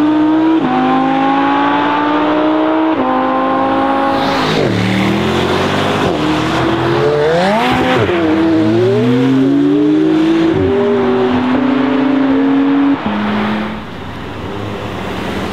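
High-performance sports car engines accelerating hard. The engine note climbs and drops back sharply at each upshift, about half a second, three and four and a half seconds in. Then the revs rise and fall unevenly before a steady pull. Near the end it cuts to a quieter car engine pulling away.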